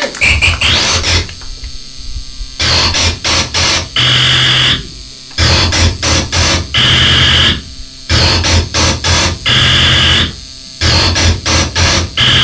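Harsh electronic noise music from a tabletop rig of effects pedals and electronics. Loud blasts of dense noise, each carrying a low hum and a high whine, cut in and out abruptly every few seconds, with rapid stuttering between the blasts.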